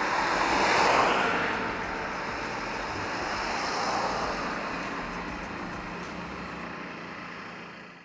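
Road traffic on a highway: vehicles passing by, their engine and tyre noise swelling about a second in and again around four seconds, then fading out near the end.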